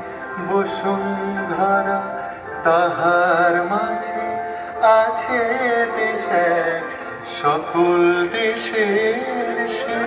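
Music from the sound and light show's soundtrack: a wavering, ornamented melody over a steady low drone.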